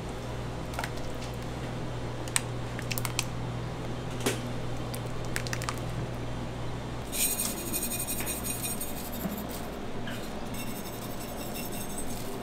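Kitchen work: utensils and dishes clinking and knocking in scattered light clicks over a steady low hum. A high-pitched whine comes in about seven seconds in and comes and goes after that.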